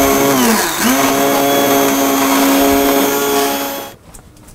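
Hand-held immersion blender running in a saucepan of clementine sauce as a steady motor whine. Its pitch dips and recovers under load under a second in, and it switches off about four seconds in.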